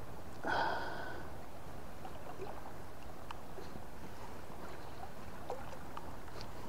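Steady rush of river current flowing past. About half a second in comes a brief high squeak with a few stacked tones, and a few faint ticks follow.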